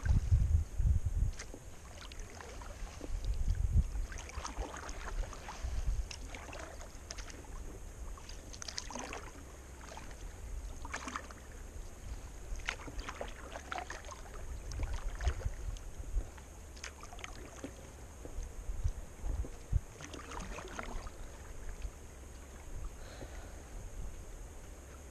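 Kayak paddling on calm river water: a paddle blade dipping and splashing in irregular strokes about every second or two, with drips in between, over a low rumble on the microphone.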